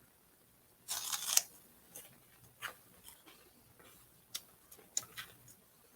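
A crunching bite into a light, puffed snack stick about a second in, followed by a few scattered crisp crunches of chewing.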